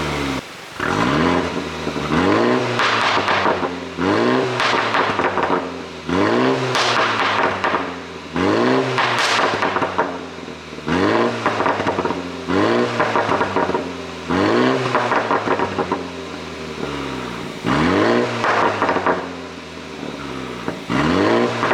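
BMW 330i's turbocharged 2.0-litre four-cylinder engine revved in short blips about every two seconds, with pops and crackles on each fall in revs: the overrun burble of a pop-and-bang ECU tune.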